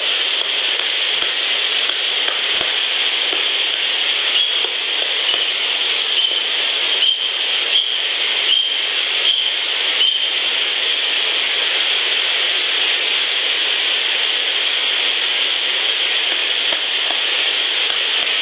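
Amplified outdoor field recording dominated by a loud, steady hiss. A few faint short chirps and light clicks come through it, mostly in the middle stretch.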